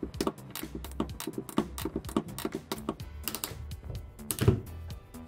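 Background music with a quick, uneven run of clicks from a Knipex ratchet cable cutter as it works through a thick multi-core copper power cable. A louder thump comes about four and a half seconds in.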